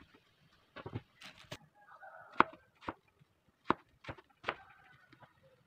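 Kitchen knife chopping carrots on a cutting board: irregular sharp taps of the blade striking the board, about eight in all.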